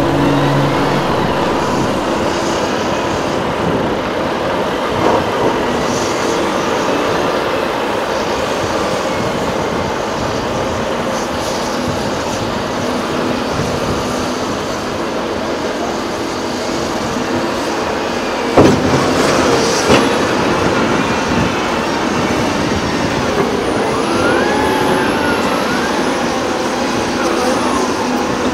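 Heavy diesel earthmoving machinery running steadily, with a few loud bangs about two-thirds of the way through and a short wavering squeal a few seconds later.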